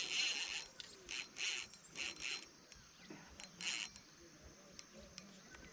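Baitcasting fishing reel buzzing in short bursts as a hooked fish pulls against the bent rod: the longest burst, about half a second, comes at the start, and three or four shorter ones follow and thin out toward the end.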